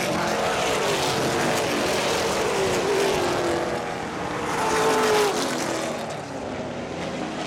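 Late model stock car V8 engines racing past on a short oval, their pitch sliding down as each car goes by, loudest about five seconds in.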